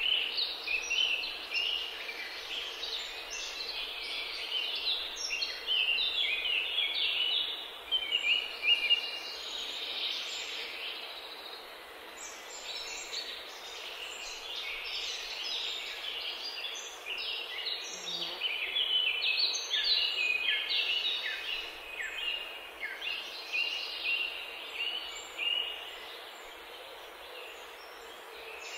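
Many small birds chirping and twittering continuously in overlapping short calls, over a faint steady hum.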